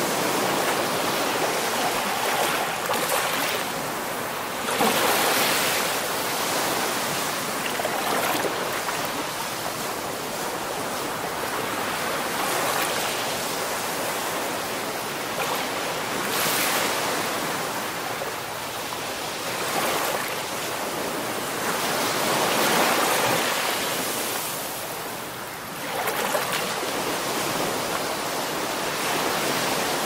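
Sea waves: a steady rushing surf that swells louder every few seconds as waves come in.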